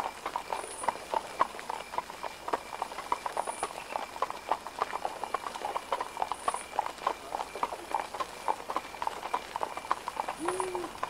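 Hooves clip-clopping on stone in a dense, uneven stream of hard knocks.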